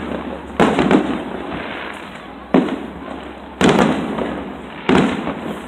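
Aerial firework shells bursting overhead: four sharp booms at uneven intervals of one to two seconds, each dying away over about a second.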